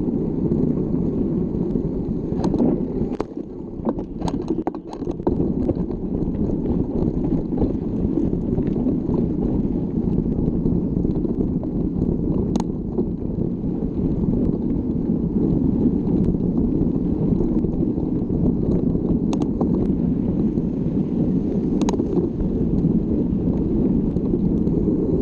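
Wind buffeting the microphone of a camera riding along on a mountain bike: a steady low rumble. Sharp clicks and knocks from the bike come through, a cluster of them about three to five seconds in as the rumble briefly drops, and a few single ones later.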